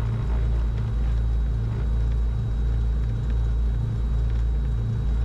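Cessna 310Q's twin six-cylinder piston engines running at low power on the ground before the run-up: a steady low drone with a regular throb about three times a second.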